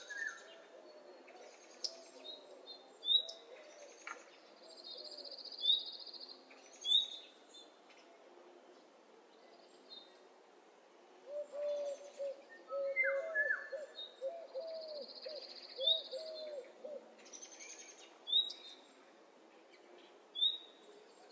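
Outdoor birdsong: short, sharp high chirps falling in pitch, repeated every second or two, with a buzzy trill twice. Runs of low, wavering calls near the start and again through the middle come from a second bird.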